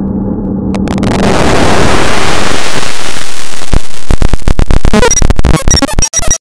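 Harshly distorted, clipped audio from a video-effects edit. Music turns into a dense wall of noise about a second in, breaks into rapid choppy stutters over the last two seconds, and cuts off suddenly.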